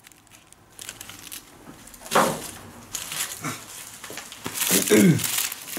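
Paper and plastic firecracker packets rustling as they are handled, with a few short vocal sounds that fall in pitch, about two seconds in and again near the end.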